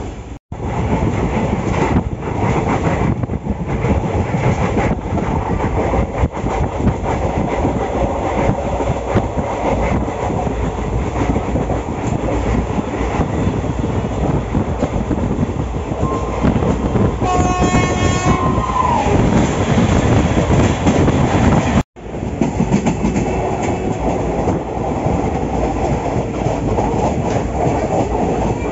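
Indian Railways express train running, heard from a coach window: a steady rumble and rattle of wheels on the track. Past the middle, a train horn sounds for about two seconds, its pitch bending as it ends.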